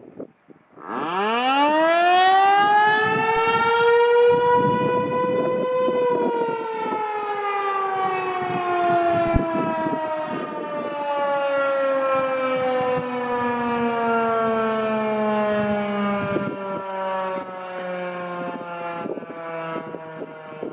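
American Signal T-128 eight-port rotating siren sounding a short test blast. It spins up from rest about a second in, its pitch rising steeply to a steady wail by about six seconds, then the motor cuts off and it winds down, the pitch falling slowly through the rest. Wind gusts buffet the microphone.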